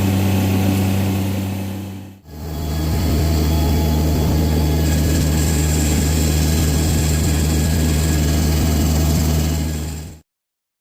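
An engine running steadily at a constant speed, with a low hum. About two seconds in it fades out and comes back a little lower in pitch. It cuts off shortly before the end.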